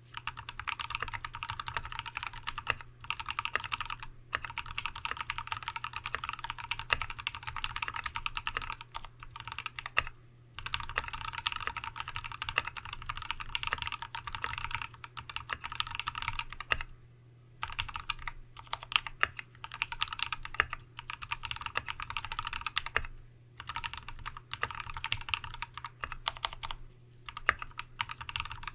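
Continuous fast typing on a TX75v2 custom mechanical keyboard with a brass plate, lubed Tealios V2 linear switches with Cherry top housings and Dev/tty keycaps. Rapid keystroke clicks come in runs of several seconds broken by brief pauses.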